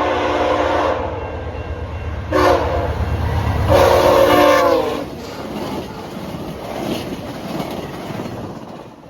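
VIA Rail passenger train sounding its horn for a grade crossing: a held blast ending about a second in, a short blast, then a long blast whose pitch drops as the locomotive passes. The rush of the train going by at speed follows and fades away near the end.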